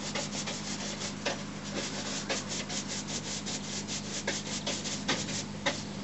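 Steady low machinery hum under irregular rubbing and scraping ticks, several a second, from pipe-bursting work on a PVC sewer pipe.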